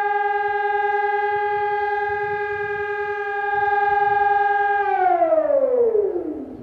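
Civil defence warning siren sounding one steady tone, then winding down in pitch and fading about five seconds in.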